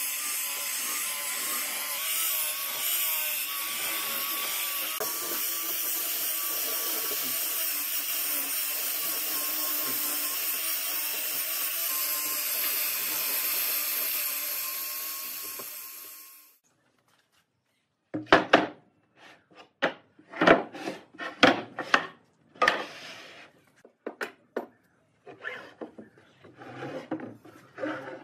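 Angle grinder with a sanding disc running steadily against a wooden frame, with a constant whine. It stops about two-thirds of the way through. A series of sharp wooden knocks and clatters follows as boards and bar clamps are set down on a workbench.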